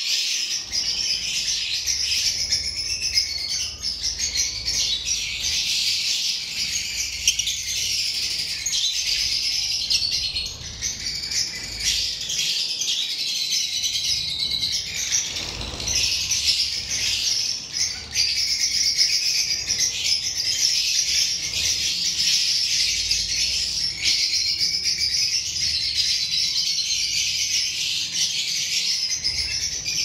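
A large flock of lovebirds chattering together: dense, continuous high-pitched chirping from many birds at once.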